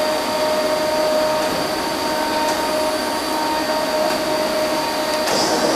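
Hankook CNC machining center running: a steady machine whine of several held tones over a constant hiss, with a brief rattle about five seconds in.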